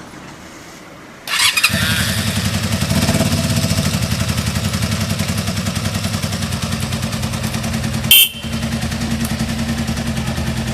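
Honda VT250 Spada's V-twin engine cranked on the electric starter about a second in, catching on the first press and then idling steadily with an even beat and no abnormal noise. A short sharp burst of noise cuts across the idle about eight seconds in.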